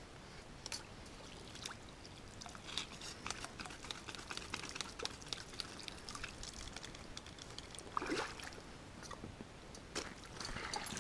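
Katadyn hand-pump water filter being pumped, filtered water trickling into a metal pot, with many small clicks. A few louder knocks come near the end.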